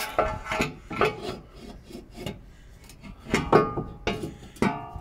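Cast aluminium sump of a Ford Zetec engine scraping and knocking against the engine as it is worked up into place, in a series of short, irregular scrapes, some with a brief metallic ring.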